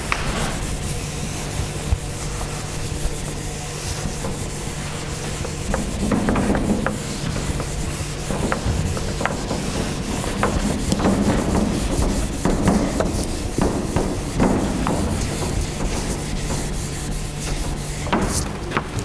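Felt whiteboard eraser wiped across a whiteboard in repeated rubbing strokes, clearing the marker writing.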